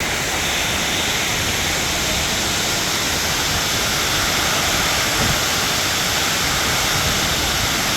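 Heavy rain falling in strong wind: a steady, loud hiss with no let-up.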